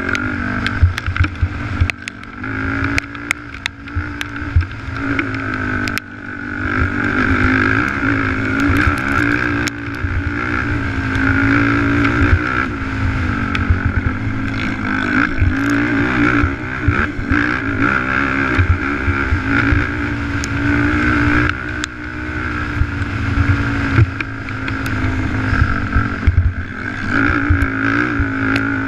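Race ATV engine running hard at high revs, easing off for a few seconds near the start, then pulling hard again from about six seconds in. Scattered knocks and rattles from the machine running over rough dirt, heard from the rider's helmet camera.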